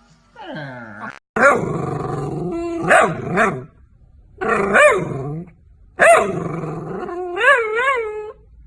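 A dog vocalizing in a series of five or six drawn-out, pitched calls, part howl and part growl, with the pitch bending up and down and wavering in the last call.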